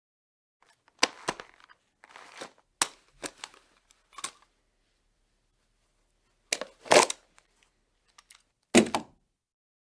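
Gun sound effects: a string of short, sharp mechanical clicks and clacks. A quick cluster comes in the first few seconds, then after a pause three heavier clacks, the last two the loudest, with silence between them.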